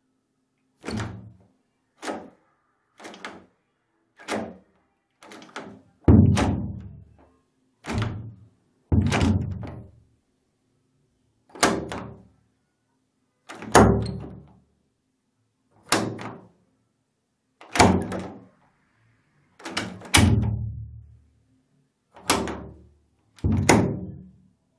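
An American door knob worked over and over: about fifteen separate clicks and rattles of the knob and latch, a second or two apart, several with a heavier low thunk of the door.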